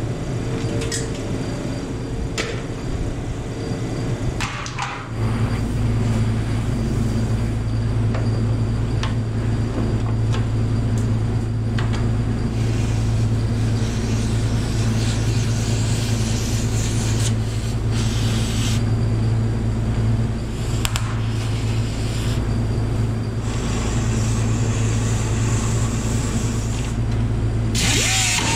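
Oxy-acetylene cutting torch hissing as it cuts through old steel, with stretches of louder hiss several times. A steady machine hum starts suddenly about five seconds in, after a few clicks and knocks of parts being handled.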